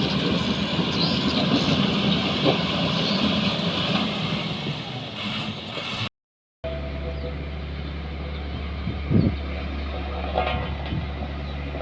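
Heavy road-construction machinery engines running. There is a break about six seconds in, after which a steady low engine drone continues with a couple of brief knocks.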